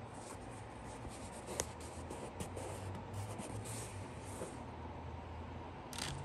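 Light handling noise from a sneaker and its box: soft scratching and rubbing with a few small clicks, close to the microphone.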